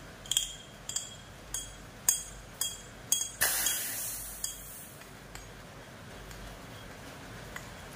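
Sharp metallic clinks, about two a second, then about three and a half seconds in a hiss of compressed air escaping from a paintball regulator that fades out over about a second and a half, as the regulator is vented to rework its disc-spring stack.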